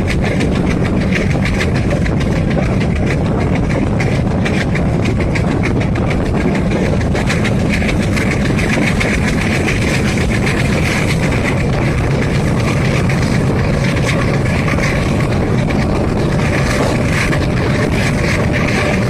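Diesel train running along the track: a steady low drone from its diesel engine, with the wheels clicking over rail joints.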